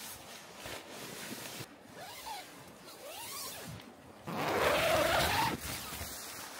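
Nylon and down-jacket fabric rustling as clothing is handled, then a tent door zipper pulled open in one long stroke about four seconds in, the loudest sound.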